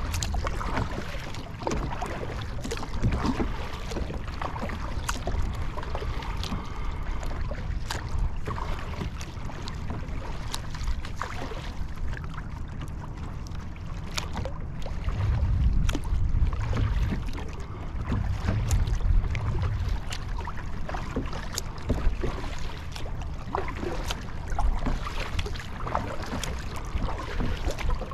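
Water sloshing against the hull of a Field & Stream Eagle Talon 12 fishing kayak, with wind rumbling on the microphone and scattered sharp knocks and clicks throughout.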